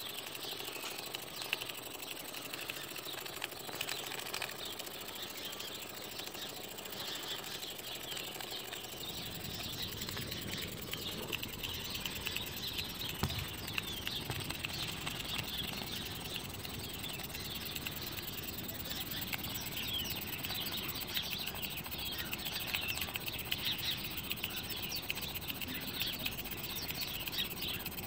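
Miniature Stuart ST single-cylinder vertical steam engine running on steam: a fast, dense ticking chatter of its exhaust and valve. The sound grows fuller and lower from about nine seconds in.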